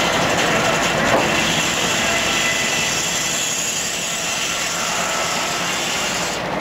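Steam-powered machinery running: a steady, dense mechanical noise with faint high whining tones.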